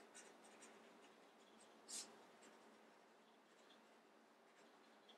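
Faint scratching of a pen writing on a small paper notepad, with a louder stroke about two seconds in.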